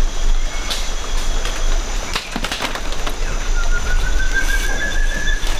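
Rainforest canopy sounds: a few quick rustles and cracks of leaves and branches about two seconds in, over a steady high insect drone and a constant low rumble on the microphone. In the second half a bird gives one long whistled note that rises slightly.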